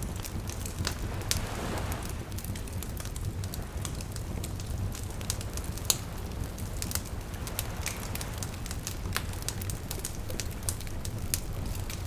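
Wood fire crackling, with irregular sharp pops over a steady low rumble and one louder pop about six seconds in. Small waves lap softly beneath it, swelling now and then.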